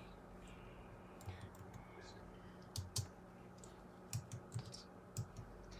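Slow, uneven typing on a slim low-profile computer keyboard: about seven faint, separate key presses, a couple close together around the three-second mark and a small cluster near the end.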